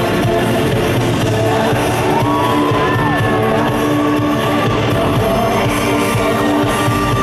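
Live pop song in a large arena: a woman singing into a microphone over a loud band track, with shouts and whoops over it.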